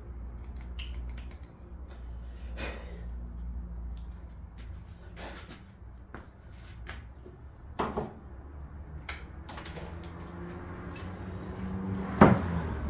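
Clicks and clatter of a spray-foam gun and tools being handled at a workbench, with a louder knock a little past halfway and a sharp knock near the end.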